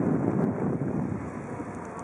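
Wind buffeting the microphone in gusts over the low rumble of road and tram traffic.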